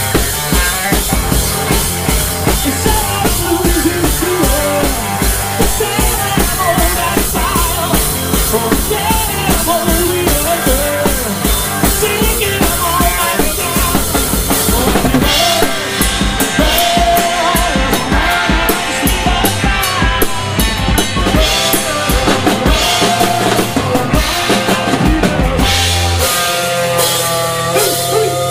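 Live rock band playing loudly: electric guitar over a drum kit driving a steady beat of bass drum and snare hits. The drum pattern shifts about halfway through.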